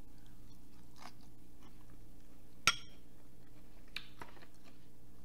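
A person chewing a mouthful of garden salad close to the microphone, with soft crunches now and then. One sharp click comes about two and a half seconds in, over a steady low hum.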